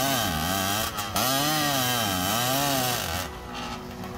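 Two-stroke race chainsaw with a tuned expansion pipe, at full throttle cutting through a log, its pitch sagging under load and rising again several times, with a brief let-off about a second in. Near the end it drops to a lower, steady idle as the saw comes out of the cut.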